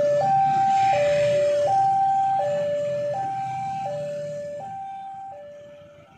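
Railway level-crossing warning alarm sounding its two-tone signal, alternating between a lower and a higher tone about every three-quarters of a second, warning that a train is at the crossing. Under it a train rumbles past. The alarm fades out toward the end.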